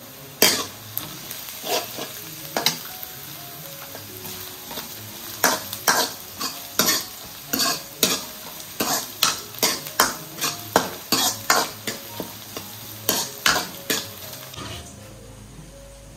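Onions frying and sizzling in a metal kadai while a steel ladle stirs and scrapes the pan, in sharp strokes about two a second through most of it. The sizzle cuts off suddenly near the end.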